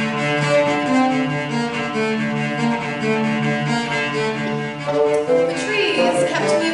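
Bassoon and cello playing a slow duet of held, overlapping notes, with a gliding, bending passage near the end.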